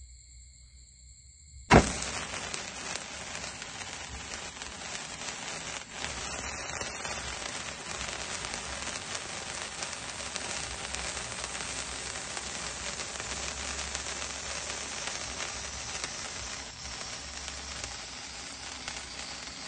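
A 30-second spark fountain catches with a sudden sharp crack a little under two seconds in, then sprays sparks with a steady fizzing hiss and crackle.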